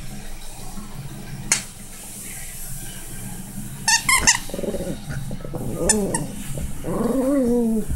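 Miniature pinscher growling in two short bouts, about five seconds in and near the end, while tugging over a plush toy bone. A few sharp clicks come before the growls, around a second and a half and four seconds in.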